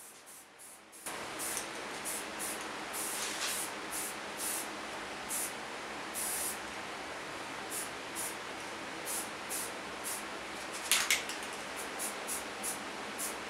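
Rust-Oleum aerosol spray paint can hissing steadily as paint is sprayed, starting about a second in, with short spurts of sharper hiss on top. A brief louder sound about eleven seconds in.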